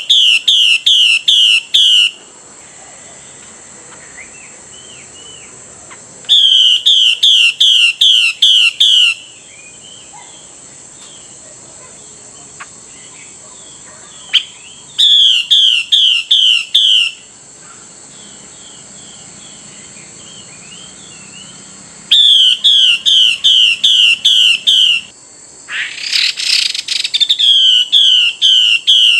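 Female Chinese hwamei calling in five runs of loud, clear, down-slurred whistled notes, about three to four notes a second. Between the runs there are softer bird chirps, a steady high insect drone underneath, and a short noisy burst shortly before the last run.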